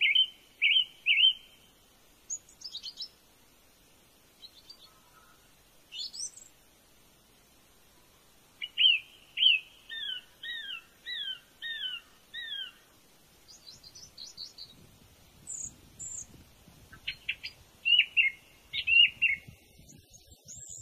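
Birds calling: runs of short, high chirps, most of them sliding down in pitch and repeated about twice a second, with stretches of near quiet between the runs.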